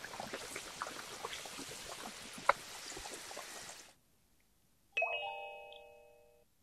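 Battered potato flowers deep-frying in hot oil, a steady sizzle with small crackling pops and one sharper pop midway. The sizzle stops, and after a short pause a bright chime rings once and fades away.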